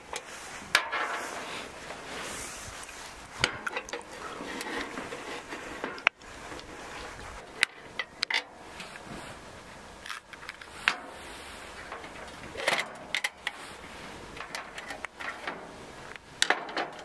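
Objects being handled: a dozen or so sharp knocks and clicks at irregular times over a steady background hiss.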